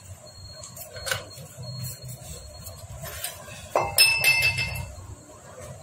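A metal hand tool clinking against the Hero Splendor Plus engine casing during assembly: a few light taps, then a quick cluster of sharp, ringing clinks about four seconds in.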